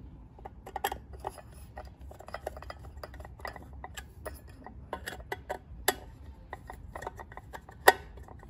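Phillips screwdriver turning a small screw into a metal fixture canopy: irregular metallic clicks and short scrapes as the tip works in the screw head, with a sharp click about six seconds in and a louder one near the end.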